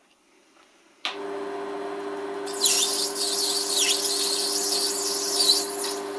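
Chinese mini-lathe starting up about a second in, its motor and spindle running with a steady hum. From about two and a half seconds in, the cutting tool facing the spinning metal disc adds a louder, harsh high-pitched cutting noise that rises and dips.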